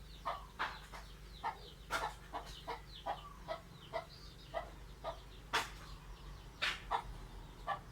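Birds calling: a run of short falling chirps, several a second, over a low steady hum. Sharper clicks are mixed in, the loudest a little after five seconds and again near seven.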